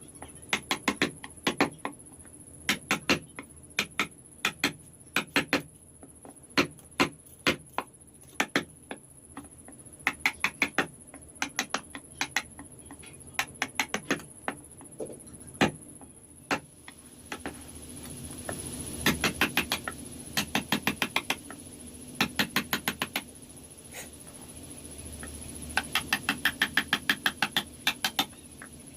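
Carving chisel struck with a mallet into wood: quick runs of sharp taps, several a second, with short pauses between runs, over a faint steady high whine.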